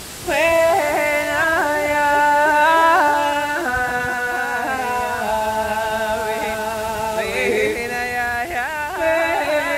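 A woman's voice singing a wordless, ornamented melody: held notes joined by slides and quick turns, coming in with a rising slide just after the start.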